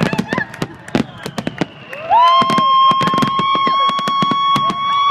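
Fireworks display: many sharp shell bursts and crackling bangs in quick succession. About two seconds in, a high steady tone rises in and holds for about three seconds, over the bangs, then falls away at the end.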